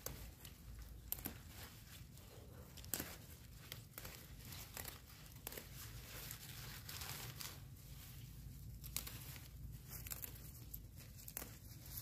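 Leafy green plants being picked by hand: leaves rustling and stems snapping and tearing in an irregular scatter of crisp crackles.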